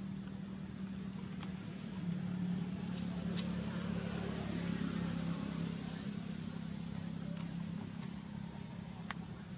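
Steady low engine hum in the background, dipping slightly in pitch about two seconds in, with two sharp clicks.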